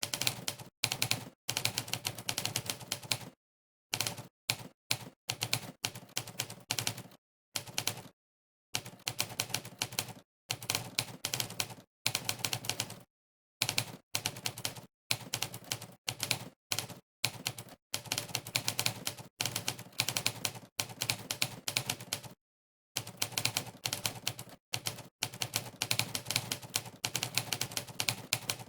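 Monkeytype's typewriter keypress sound effect: rapid typewriter key clacks, one per keystroke, in quick runs broken by short gaps of total silence between bursts of typing.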